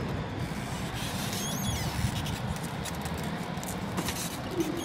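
Steady low rumble of a level-crossing scene, easing a little after about two and a half seconds, with a faint high chirp about a second and a half in. Near the end a steady low hum starts up: the level crossing's barrier mechanism beginning to lift the barriers.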